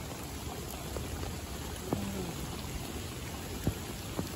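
Steady rush of water from a flooded, fast-running creek, with a few short knocks.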